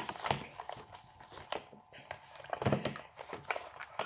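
Rustling and a series of light knocks from cosmetics packaging being handled, as a boxed eyeshadow palette is picked out.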